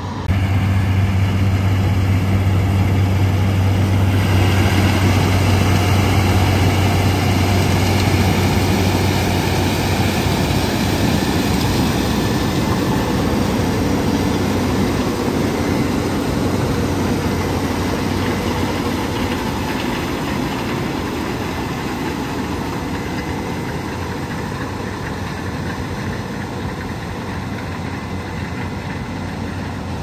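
Combine harvester running steadily with a low engine hum while its unloading auger empties corn into a straight truck. The sound comes in suddenly at the start and eases slightly over time.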